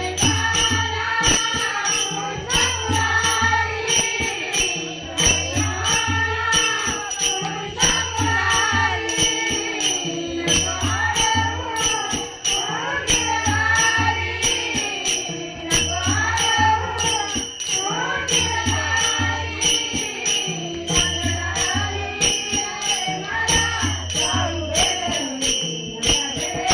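A woman singing a Marathi gaulan, a devotional folk song, with a steady jingling percussion beat and a low recurring bass pulse behind her.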